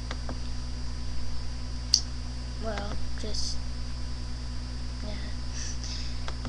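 Steady low electrical hum picked up by a webcam microphone, with a few small clicks, the sharpest about two seconds in, and a brief murmur of a voice about three seconds in.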